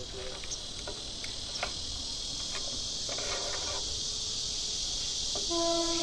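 Steady high-pitched hiss, growing slightly louder, with scattered light ticks and a brief rattle as baler twine is threaded by hand through the metal guides and eyelets of a silage round baler's twine-tying mechanism.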